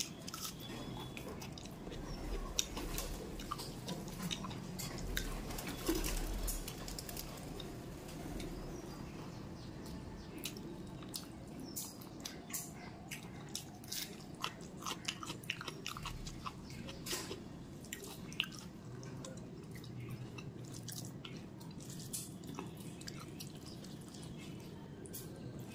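Close-miked chewing of a hand-fed mouthful of rice with chicken skin curry and fried pointed gourd. It has many short wet mouth clicks and small crunches, thickest through the middle of the stretch.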